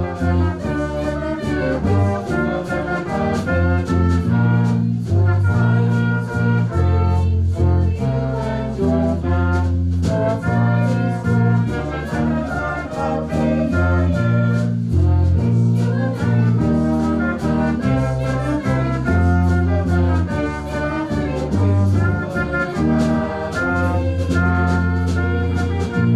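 Live ensemble music: a piece with sustained melody notes over a low bass line that moves from note to note about once a second.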